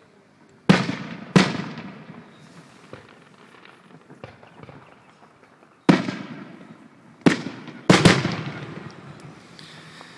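Aerial firework shells bursting: six sharp booms, two about a second in, one near six seconds, then three close together around seven to eight seconds, each trailing off in a long fading echo.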